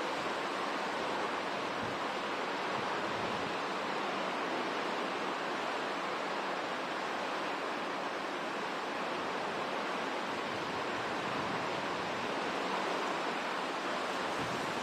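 Hurricane-force wind and heavy rain: a steady rushing noise with no let-up.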